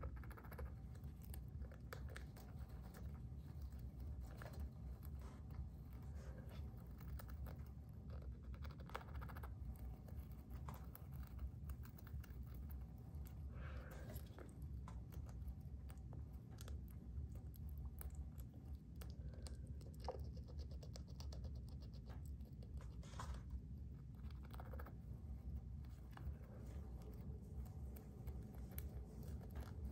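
Hamster scratching and gnawing at a painted corner: faint, irregular small scratches and clicks over a low steady hum.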